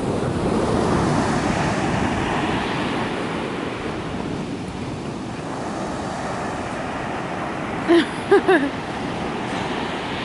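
Sea surf breaking and washing up on a sandy beach, swelling over the first couple of seconds and then running on steadily. Three short cries come in quick succession about eight seconds in.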